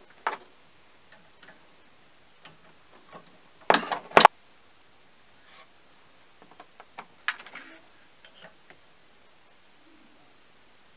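Small metal parts of a mini lathe's compound slide clicking and knocking as they are handled: scattered light ticks, two loud knocks about four seconds in, and another burst of clicks around seven seconds.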